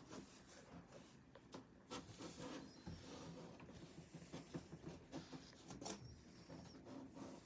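Faint, irregular scratching, tapping and rustling of cats' paws and claws on a cardboard box.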